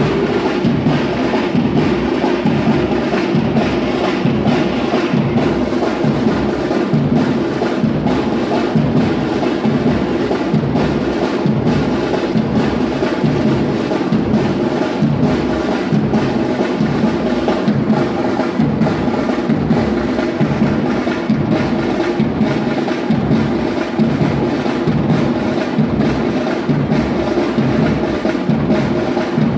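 Batucada drum ensemble playing a steady, driving samba-style rhythm, with bass drums and snare drums.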